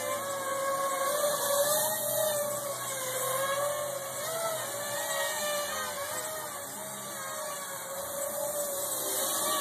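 Electric motors and propellers of a V-tail multirotor in flight, a whine of several tones whose pitch keeps wavering up and down as the flight controller varies each motor's speed. The front motors swing 11-inch two-bladed props and the rear pair 7-inch three-bladed props. The sound dips a little in the middle and comes back near the end.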